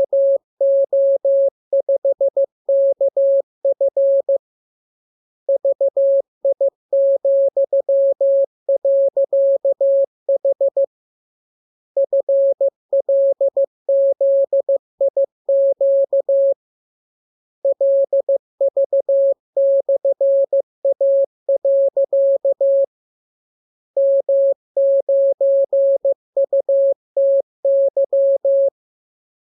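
Morse code practice tone: a single steady beep keyed on and off into dots and dashes. It comes in groups about five seconds long, with a pause of about a second between groups, as in a practice radiogram sent for copying by ear.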